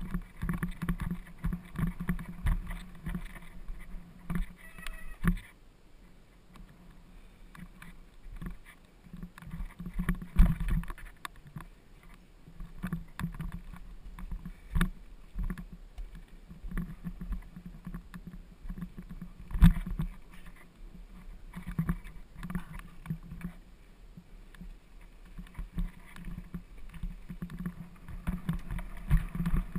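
Mountain bike rattling and clattering over a rough stone-flagged trail, with a steady low rumble and frequent irregular knocks from the wheels and frame striking bumps. Two sharp, loud knocks come about ten and twenty seconds in, and a calmer stretch comes a few seconds after the start.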